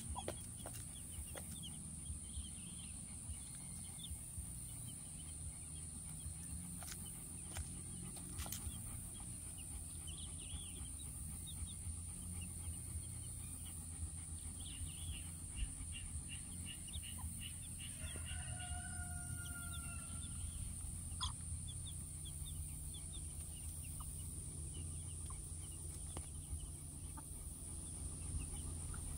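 Two-day-old chicks peeping softly in short chirps while they feed, with their mother hen clucking. About two thirds through there is one longer drawn call.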